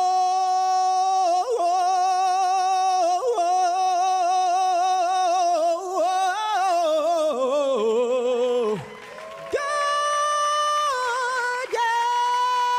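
Unaccompanied male singer holding the word "so" in one long note with vibrato for about eight seconds, gliding down at its end. After a short break he holds higher notes.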